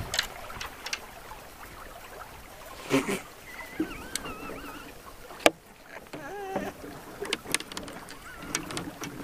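Steady outdoor noise of moving water and wind around a small fishing boat, broken by scattered clicks and knocks: a loud knock about three seconds in and a sharp crack about five and a half seconds in.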